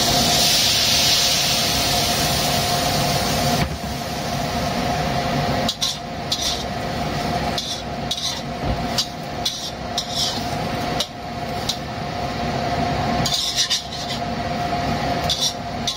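Stir-frying in a pan: the food sizzles loudly for the first few seconds, then a spatula scrapes and clinks against the pan in short, repeated strokes. A kitchen range hood fan hums steadily underneath.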